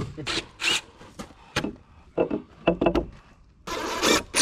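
Irregular knocks, clicks and short scrapes of hand work on formwork and rebar. A longer rasping scrape comes near the end.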